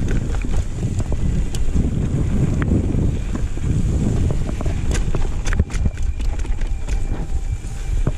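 Wind buffeting the microphone of a handlebar-mounted camera on a mountain bike riding down a dirt singletrack, over the rumble of the tyres on the trail. Clicks and rattles from the bike as it runs over bumps are scattered throughout, thickest around five to six seconds in.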